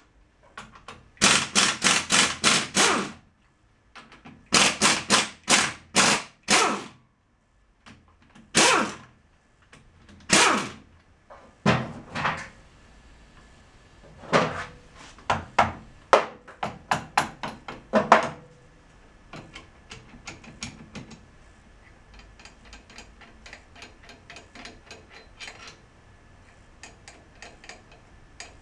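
Impact wrench run in short bursts on the bolts of a Toyota Tundra rear differential carrier, several quick pulses at a time. After about 20 seconds only light metal clicking and tapping is left.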